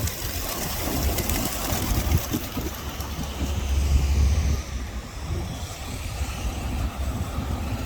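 A flock of pigeons flapping their wings, a dense fluttering rush that is strongest in the first few seconds and then thins out. Under it a low rumble swells, loudest about four seconds in.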